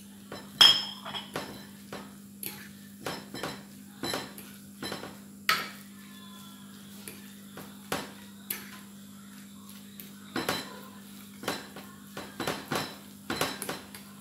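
A spoon clinking and scraping against a small bowl and a glass dish while minced garlic is mixed into raw minced pork: irregular clinks and taps, the loudest a ringing clink about half a second in. A steady low hum runs underneath.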